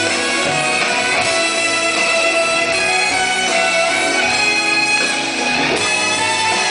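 A rock band playing live and loud, with a hollow-body electric guitar strummed.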